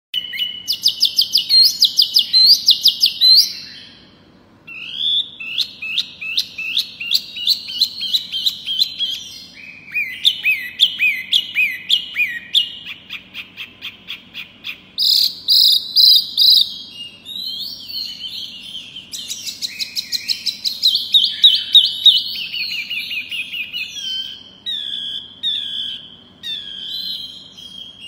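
A caged wambi mini songbird singing a long, varied song of whistled phrases and fast runs of repeated notes, with a short pause about four seconds in. It is the kind of full, continuous song kept as a 'pancingan', a lure recording played to make other birds sing.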